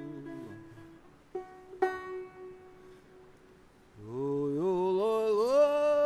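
A man singing a yoik, the traditional Sámi chant, with a banjo: a held note falls away in the first second and two plucked banjo notes ring out about a second and a half in. About four seconds in, the voice comes back, rising in steps to a high held note.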